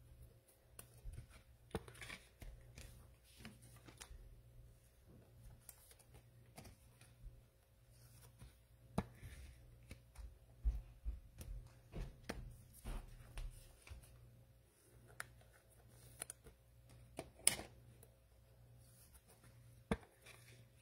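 Quiet handling of trading cards and cellophane pack wrappers: scattered soft rustles, taps and card slides, over a faint steady hum.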